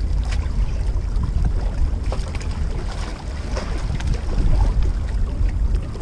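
Wind buffeting the microphone of a body-worn action camera, a steady low rumble, with a few faint clicks over it.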